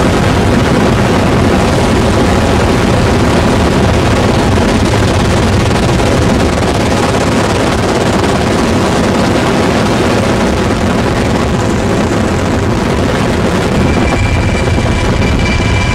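Military helicopter in flight, heard from inside the cabin with the door open: loud, steady rotor and turbine noise mixed with rushing air. A thin steady whine joins it near the end.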